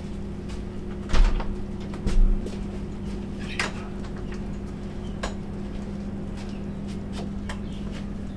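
Two heavy knocks about a second apart, then a few lighter clicks, over a steady electrical hum.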